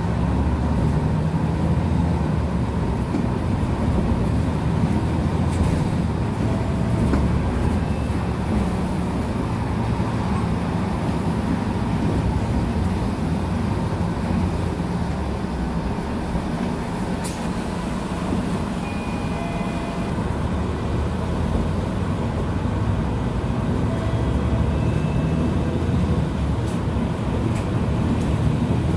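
Mercedes-Benz Citaro city bus heard from inside the cabin while under way: a steady low engine drone with road noise. A single sharp click comes about seventeen seconds in.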